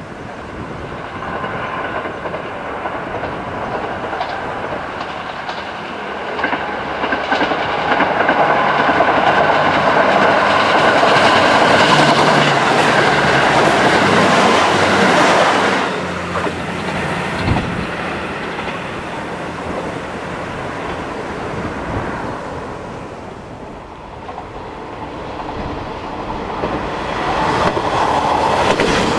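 A JR Central KiHa 75 diesel railcar train passes close by, its diesel engines and wheels on the rails loudest about 10 to 15 seconds in, then dropping away sharply. About 24 seconds in, the sound gives way to a second diesel train, a KiHa 47/KiHa 48 set, growing louder as it approaches.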